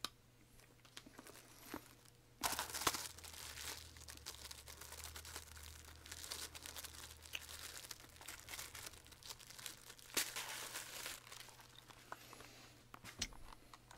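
Crinkly snack packaging being handled and torn open, crackling and rustling in spells, loudest about two and a half seconds in and again around ten seconds.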